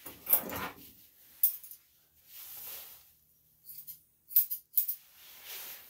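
Rustling swishes of a Shih Poo's fur being handled at the head and ears, with a few sharp clicks about four seconds in.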